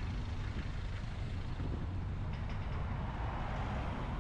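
Road traffic: a steady low rumble, with a vehicle passing close by and its tyre noise swelling about three seconds in.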